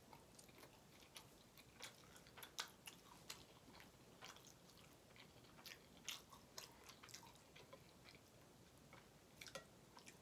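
Close-miked chewing of a mouthful of ramen noodles: soft, wet mouth clicks and smacks in quick irregular runs, thinning out for a couple of seconds before picking up again near the end.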